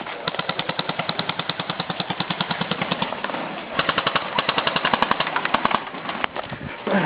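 Airsoft guns firing on full auto: a long stream of rapid sharp clacks, louder for the last couple of seconds of the stream, then a few single shots.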